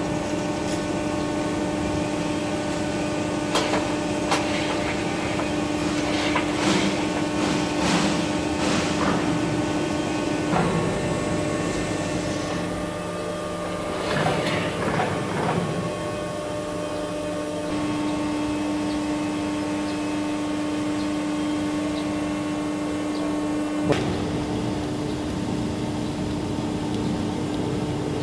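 Hydraulic press brake's pump motor humming steadily, with metallic clanks and knocks as steel front sheet-support arms are slid and fitted along the machine's rail; a single sharp click near the end.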